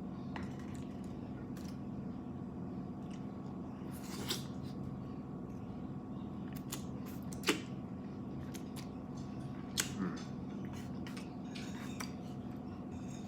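Eating and handling takeout food: a few sharp clicks and taps of utensils and containers over a steady background hum.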